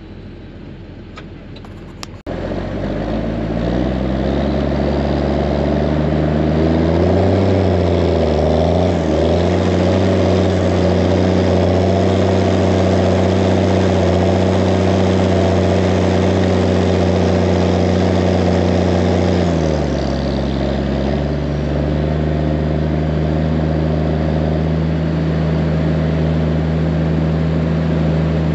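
Large farm tractor's diesel engine under load. After a click about two seconds in, it comes in loud and climbs in revs, then holds steady. About two-thirds of the way through it drops to a lower steady speed.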